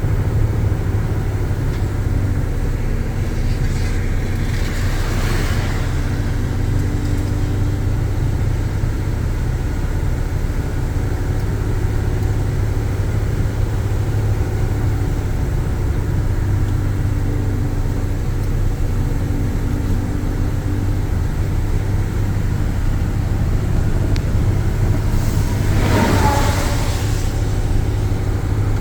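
Car driving on a wet road in rain, with a steady low engine and road drone under a constant hiss. Two brief swells of hiss break through, the louder one near the end.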